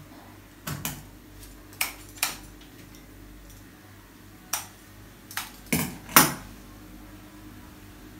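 Florist's scissors snipping flower stems: about eight sharp metallic clicks in irregular pairs, the last two the loudest and heaviest.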